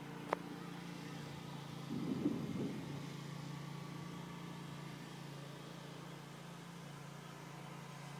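A steady low hum from a motor or engine, with a short burst of rough noise about two seconds in.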